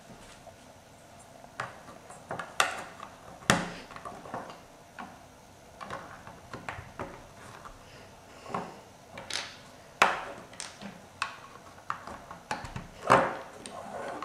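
Plastic LEGO bricks being pressed onto a build and handled on a wooden tabletop: irregular sharp clicks and knocks, a few of them louder.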